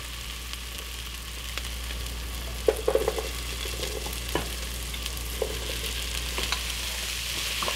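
Diced onion, garlic and jalapeño sizzling in hot olive oil in a pot, a steady frying hiss. From about three seconds in there are a few knocks and clatters as diced celery and bell pepper are pushed off a plate into the pot.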